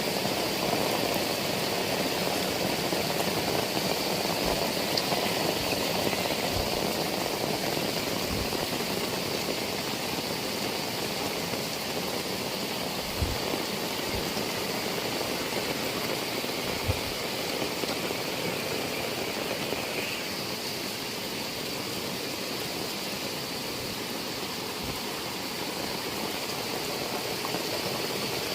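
Heavy rain falling steadily, a dense even hiss, with a few soft low thumps around the middle.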